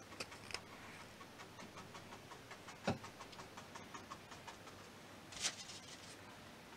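Fan brush dabbing acrylic paint onto a stretched canvas: a run of faint, quick taps, with one sharper knock about three seconds in and a short hiss about five and a half seconds in.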